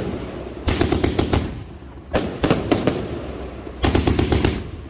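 Fireworks going off in rapid strings of sharp bangs, like machine-gun fire: three volleys about a second and a half apart.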